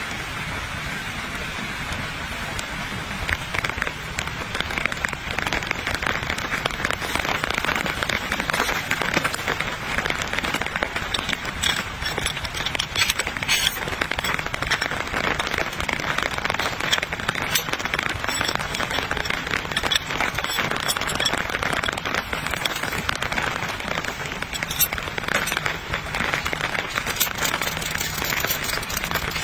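Steady rain falling, a dense hiss of many fine drops that gets heavier about three seconds in.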